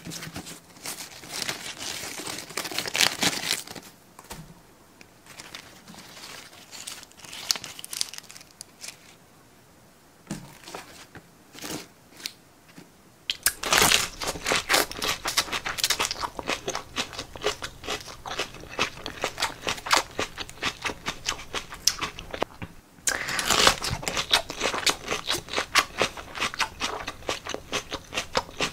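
Head of iceberg lettuce being torn and crushed by hand close to the microphone, its crisp leaves crackling and snapping. Short, quieter bursts come first, then two long, dense runs of crackling in the second half.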